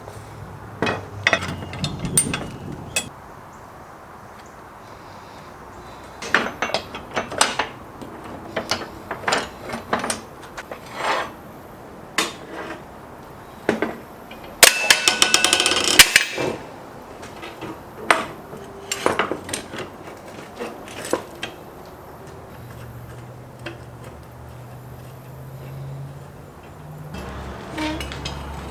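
Metal tools and parts knocking and clicking: scattered sharp taps, with a fast rattle lasting over a second about halfway through. A faint low hum comes in near the end.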